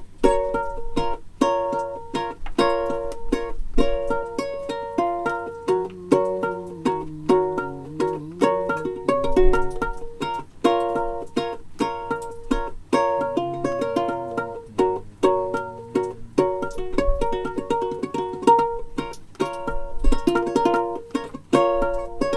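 Background music: a ukulele playing in a steady, even rhythm of plucked notes.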